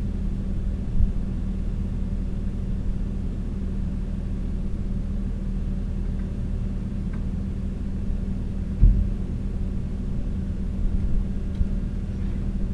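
Kioti skid steer's diesel engine running at a steady speed, with a low thump about nine seconds in.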